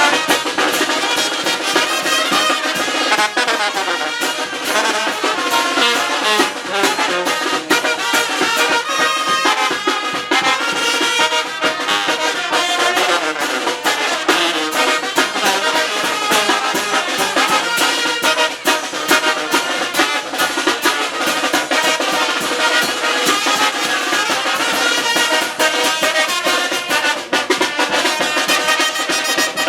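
Carnival brass band playing: trumpets and trombones over drums keeping a steady beat.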